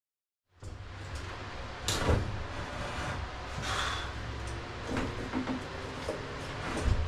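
Silence for about half a second, then scraping and several knocks of hands working on the timber beam and framing overhead, over a steady low hum.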